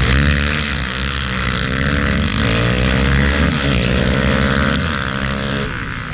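Several dirt bike engines revving hard as the bikes launch off the start line and accelerate away across the ice. Their pitch climbs and drops back again and again through the gears, then fades near the end as they pull away.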